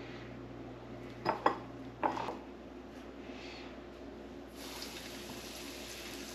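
A few sharp clinks of a utensil against a dish. Then, about four and a half seconds in, a lightly battered piece of triggerfish laid into hot vegetable oil in a frying pan starts to sizzle steadily.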